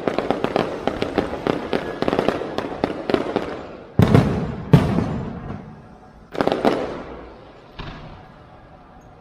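Fireworks going off: a dense run of rapid crackling pops, then two heavy bangs about four seconds in, another crackling burst a couple of seconds later, and a fainter last pop near the end.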